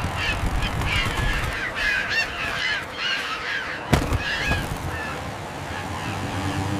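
Seagulls squawking and crying, several short calls overlapping. A single sharp knock about four seconds in.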